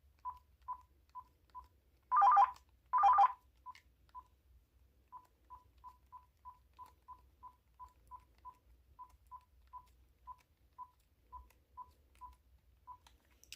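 Uniden DCT648-3 cordless phone handset beeping as its keys are pressed through the menus: a long run of short single-pitch key beeps, about two or three a second, with two longer, louder two-tone beeps about two and three seconds in.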